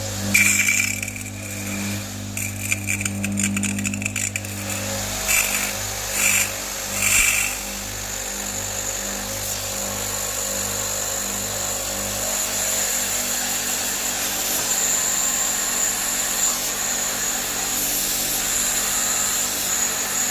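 Portable pressure-washer pump motor running with a steady hum while spraying a dirty split air-conditioner unit. The water jet hisses in several short bursts over the first seven seconds or so, then hisses steadily.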